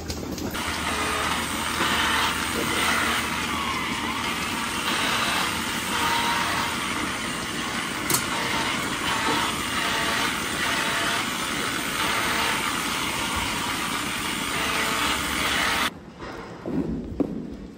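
Milking-parlour machinery running steadily: a continuous mechanical rumble and hiss from the milking equipment. Near the end it cuts abruptly to a much quieter barn with a few scrapes of a manure scraper on the concrete alley.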